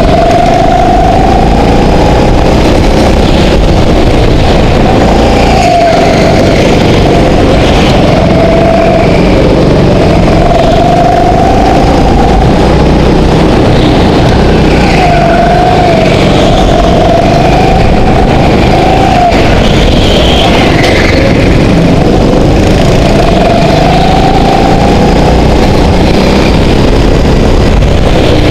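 Go-kart engine heard from onboard the kart, loud, its pitch climbing and dropping every few seconds as it accelerates out of and slows into the corners of the track.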